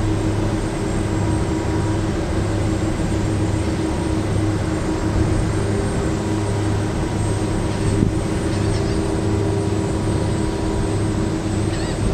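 Steady engine drone aboard a moving car ferry, a constant low hum with a broad rush of wind and water noise.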